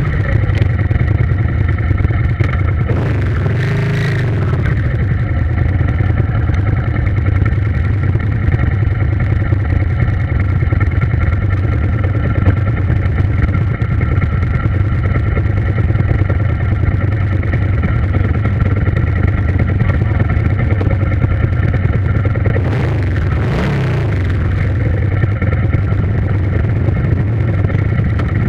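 An engine running at a steady speed, a low hum with steady overtones, its pitch shifting briefly about three to four seconds in and again near the twenty-three-second mark.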